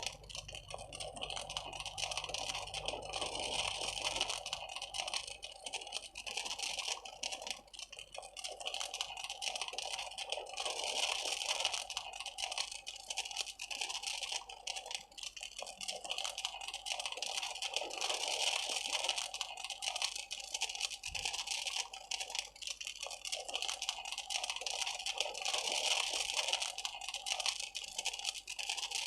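Large open flames burning with a dense, continuous crackle over a rushing hiss, swelling and easing every few seconds.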